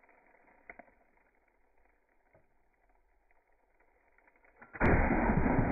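A gunshot slowed down in slow-motion playback. Faint hiss, then about five seconds in a sudden, deep, drawn-out boom that begins to fade slowly.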